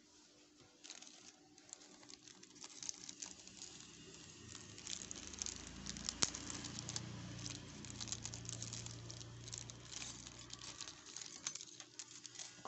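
Small clear plastic bag crinkling and crackling as it is handled, in a dense run of irregular rustles and clicks. A low hum rises under it in the middle and fades again.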